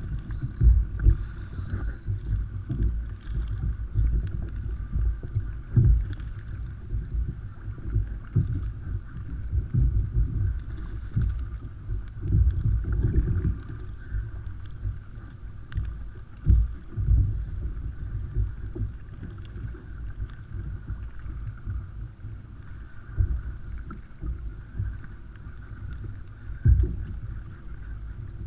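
Water slapping and wind buffeting against an ocean kayak: an irregular, low, muffled thumping and rumble.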